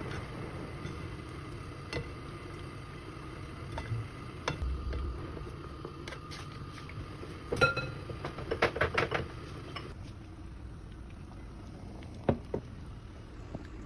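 A pan of food gently simmering and sizzling, with scattered sharp clinks of a utensil against the pan or dish, coming in a quick run about eight to nine seconds in and twice more near the end.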